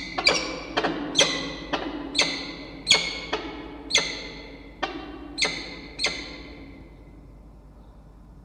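Peregrine falcons calling in pair-bonding display: a run of about a dozen short, sharp calls, roughly two a second, each ringing briefly in the wooden nest box, stopping about six seconds in.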